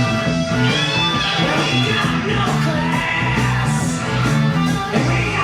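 Rock music led by guitar over a pulsing bass line.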